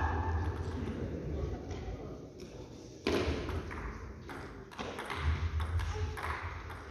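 Table tennis rally: a celluloid ball clicking off rubber paddles and the table in a quick back-and-forth, the hits coming thickest from about two seconds in.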